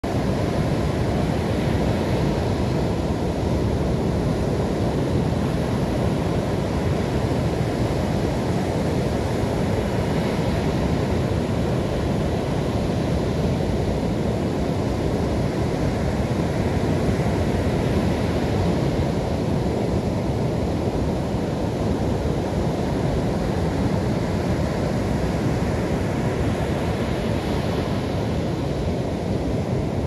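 Ocean surf breaking on a sandy beach: a steady rush of water, with waves swelling and washing in every several seconds, over a low rumble of wind on the microphone.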